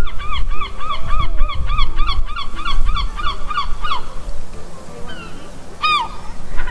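Gull calling: a fast run of repeated calls, about four a second, for some four seconds, then one more call near the end. Wind rumbles on the microphone underneath.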